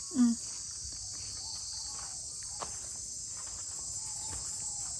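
Steady high-pitched drone of a chorus of insects in the surrounding vegetation. A brief, loud voice-like call cuts in right at the start.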